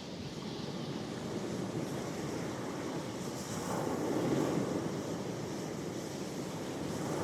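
Ocean waves washing onto the shore: a steady rush of surf that swells about halfway through and again near the end.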